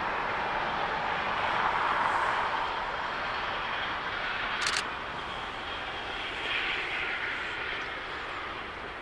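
Steam train double-headed by Hv3 and Tv1 steam locomotives pulling away, a steady rushing sound of exhaust and running gear that slowly fades as the train recedes. A single sharp click comes about halfway through.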